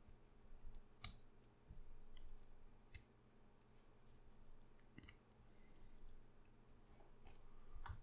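Faint clicks and light scratching of a small plastic Transformers Micromaster figure being worked by hand, with about five sharper clicks scattered through as parts are pegged and shifted.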